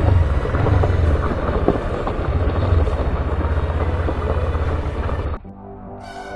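Suzuki GS500's air-cooled parallel-twin engine running at low speed with an even, throbbing pulse, mixed with tyre and wind noise from riding on a gravel track. About five seconds in it cuts off abruptly and quieter music begins.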